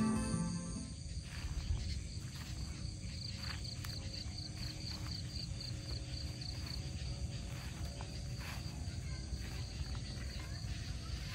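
Background music fading out within the first second, then outdoor ambience of an insect chirping in a quick pulsed rhythm, about four chirps a second for several seconds, over a steady low rumble with a few faint knocks.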